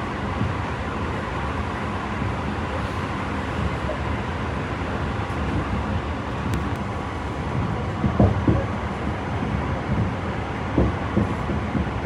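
Tobu 50090 series electric train running at speed, heard from inside the passenger car: a steady low rumble of wheels on rail, with a few heavier thumps about eight and eleven seconds in.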